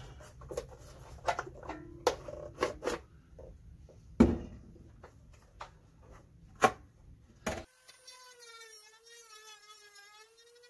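Hard plastic clicks and knocks from handling a cordless chainsaw and its battery, with two sharp knocks about four and six and a half seconds in. At about seven and a half seconds the sound cuts off abruptly and a thin, buzzing tone takes over, wavering slightly in pitch.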